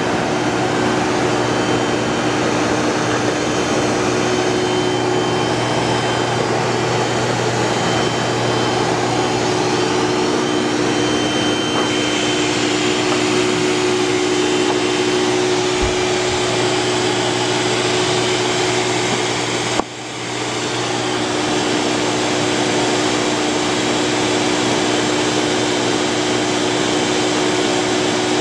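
Industrial machine running steadily: a loud, even rushing noise over a steady hum, with a brief dip about two-thirds of the way through.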